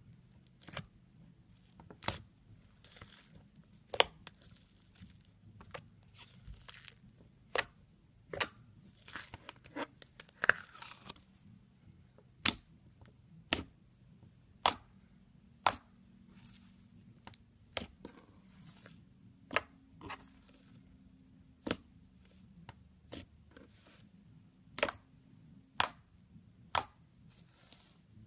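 Slime being squished and stretched by hand: sharp popping clicks from trapped air, roughly one a second and unevenly spaced, with softer crackly stretching sounds between them.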